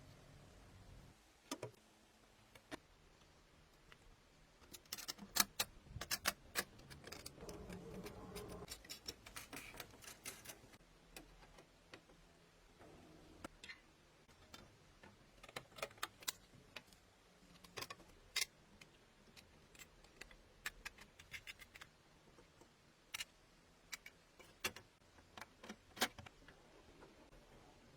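Small metal parts and hand tools being handled during restoration work: scattered sharp clicks and light taps, busiest from about five to eleven seconds in.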